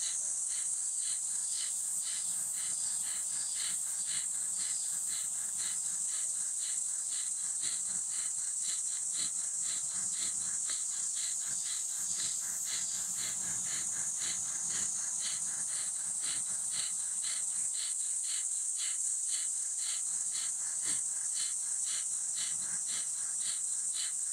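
Rapid, forceful exhalations through the nose, about two a second in an even rhythm, as in kapalabhati breathing. A steady, high-pitched insect drone runs underneath.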